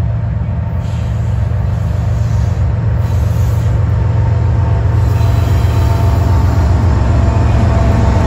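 A freight train's lead BNSF GE diesel-electric locomotives running as they approach and pass, a deep engine drone that grows steadily louder. Faint high steady tones join in about five seconds in as the units draw close.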